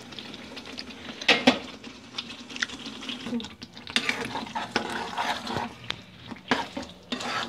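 A spatula stirring and scraping thick gravy around a non-stick kadai, with irregular scrapes and knocks against the pan; the two sharpest knocks come close together about a second and a half in.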